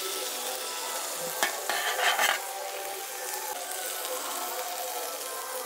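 Hot, dry-cooked vegetable curry sizzling steadily in a metal kadhai while a steel spatula scrapes and lifts it out. The scraping and clatter are loudest about one and a half to two and a half seconds in.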